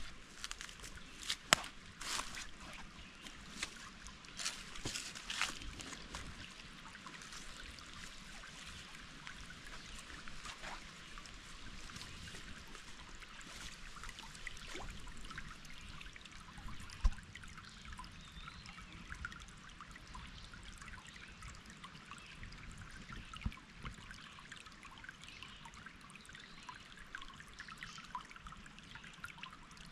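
Water trickling steadily, with a fine crackling hiss. A few sharp clicks come in the first few seconds, and a single knock about 17 seconds in.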